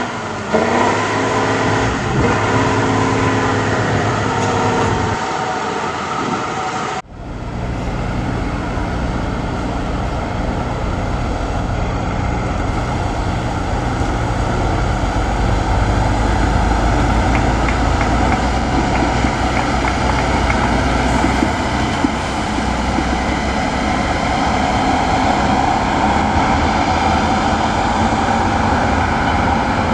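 Heavy 8x8 trial truck's diesel engine working hard under load while climbing off-road. The sound breaks off and changes abruptly about seven seconds in, after which it runs steadier and deeper.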